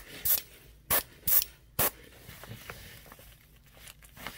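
Airbrush spraying black paint in short flicked bursts, about five in the first two seconds, spattering speckles onto a crankbait, then quiet.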